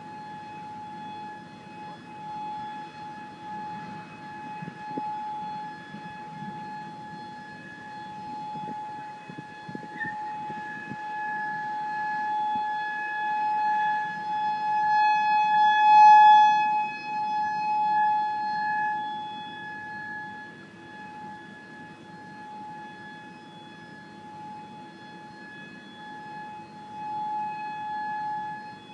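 Outdoor tornado warning siren sounding one steady tone, swelling to its loudest about halfway through and then fading again.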